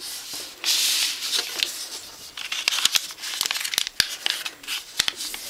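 A square of white paper rustling and sliding as it is folded corner to centre and creased flat by hand, with a loud swish about a second in and several sharp ticks later on.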